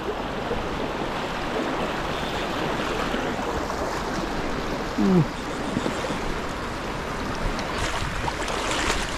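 Stream water rushing steadily, with a brief falling sound about five seconds in.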